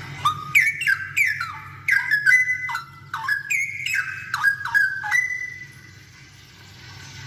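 Straw-headed bulbul (cucak rowo) singing a burst of quick, loud whistled phrases, many notes sliding downward. The song lasts about five seconds and then stops.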